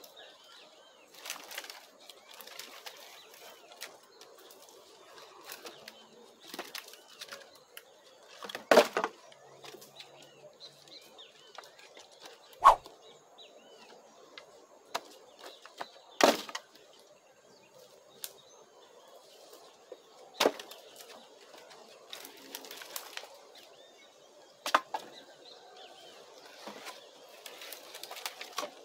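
Pieces of firewood knocking against one another as they are stacked into a charcoal kiln, with a sharp knock about every four seconds and lighter rustling between. Birds chirp faintly in the background.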